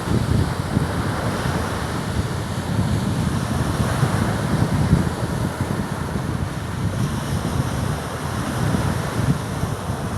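Sea waves washing in a steady rush of noise, with wind buffeting the microphone.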